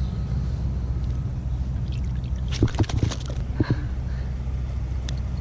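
Steady low rumble of wind on the microphone, with a few light water splashes about two and a half to four seconds in.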